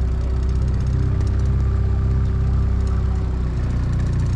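A small fishing boat's outboard motor running steadily while under way, a constant drone.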